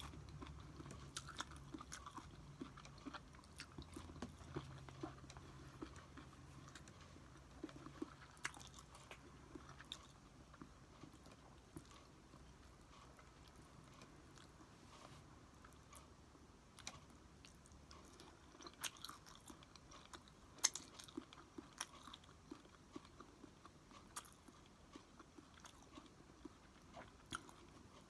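A person quietly chewing and eating food, with scattered small mouth clicks and smacks.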